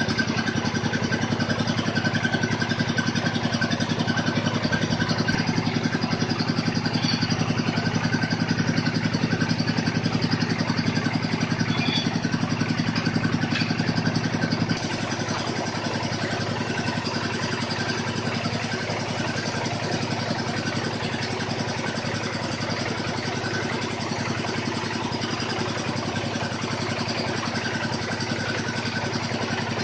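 Engine of a water-well drilling machine running steadily. Its sound drops a little, abruptly, about halfway through.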